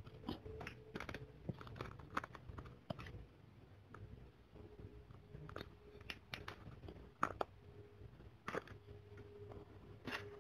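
Faint, scattered clicks and small taps of hands handling condiments and tableware over a bowl of soup, a lime wedge being squeezed at the start. The sharpest clicks come about seven and eight and a half seconds in.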